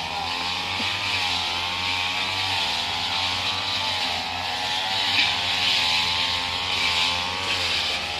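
Small two-stroke brush cutter engine running steadily at working speed while clearing weeds, its pitch wavering slightly up and down.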